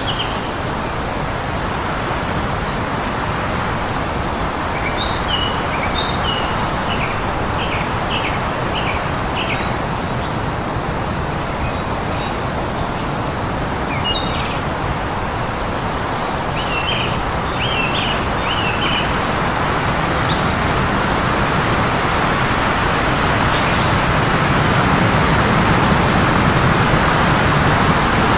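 Heavy wind blowing steadily, growing a little stronger near the end, with small birds chirping in short runs of quick high notes several times over it.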